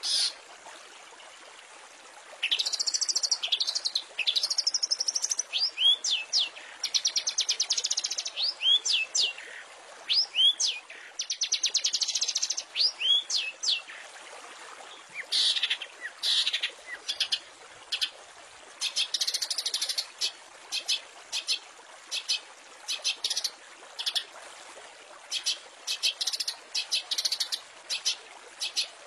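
Long-tailed shrike singing a varied song: fast rattling phrases and quick up-and-down sweeping notes, then many short, sharp notes repeated in bursts in the second half.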